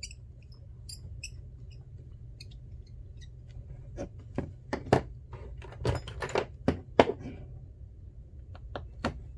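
Small repair tools and an iPhone XR being handled: faint high squeaks in the first couple of seconds, then a run of sharp clicks and taps, the loudest about five and seven seconds in, over a steady low hum.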